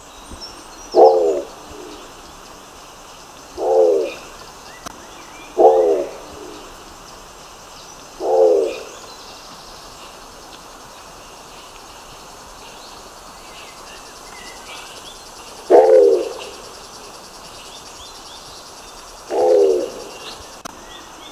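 Nicobar pigeon giving short, low calls, six of them at uneven intervals with a long pause in the middle. Faint high chirps of other birds sound behind them.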